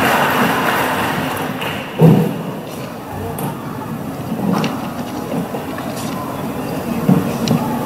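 Audience applause dying away, then a quiet, murmuring audience with a single thump about two seconds in and a few small clicks, while the orchestra waits to play.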